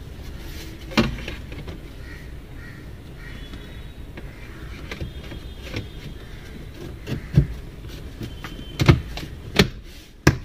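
Plastic dashboard panel of a Land Rover being fitted and pressed down by hand, giving a knock about a second in and then a run of sharp clicks and knocks in the last three seconds as it seats into place.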